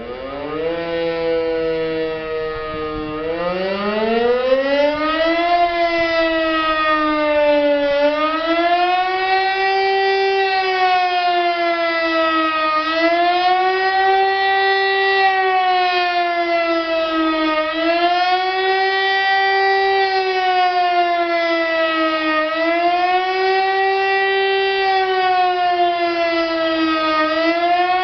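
DS977 electromechanical siren sounding the "Warnung" alarm. It spins up, holds its pitch for a couple of seconds, climbs to full pitch, then wails up and down in a regular cycle about every five seconds.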